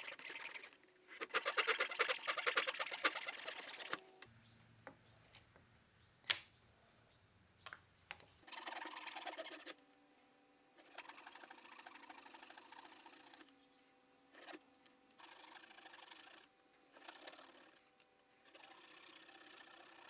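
A handsaw cutting through a small block of wood, with quick back-and-forth strokes in several separate runs and short pauses between them. In one quieter pause there are a few light clicks and one sharp knock, as small wooden pieces are handled on the workbench.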